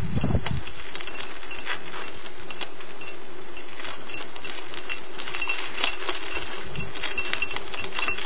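Mountain bike coasting downhill over an icy, snow-covered road: steady tyre noise over the crusted snow and ice, with frequent clicks and rattles from the bike. A short high squeak repeats, more often from about five seconds in.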